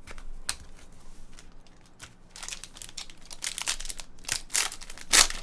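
Plastic trading-card pack wrapper crinkling as it is handled and torn open: scattered crackles at first, growing into a dense crinkling run near the end.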